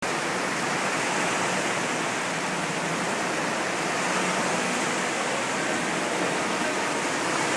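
Water in an indoor artificial wave pool rushing with a steady, even noise that holds the same level throughout.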